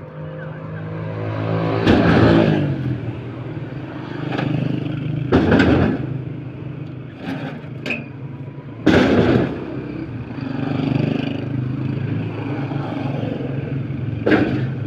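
An engine running steadily at idle, with several loud clanks and scrapes about every three to four seconds.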